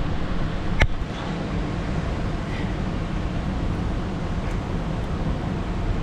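Wind rumbling on the microphone over moving water, with a single sharp click or knock just under a second in.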